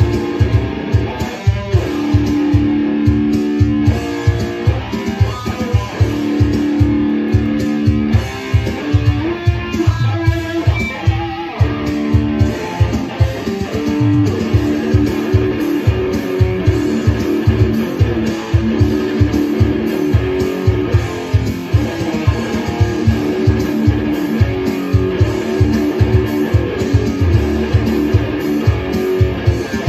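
Jackson electric guitar played through an amp, holding chords and notes that change every second or two over a steady pulse of about four low beats a second.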